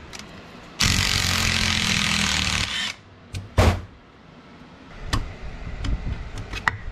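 A loud, steady noise lasting about two seconds, then scattered sharp clicks and knocks of tools and metal parts as the water pump bolts of a BMW HP4 Race engine are worked loose.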